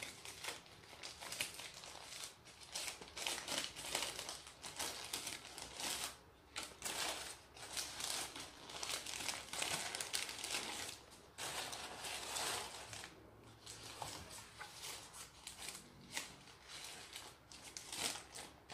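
Thin plastic food wrappers crinkling and rustling as burgers are unwrapped by hand, in irregular bursts with a few short pauses.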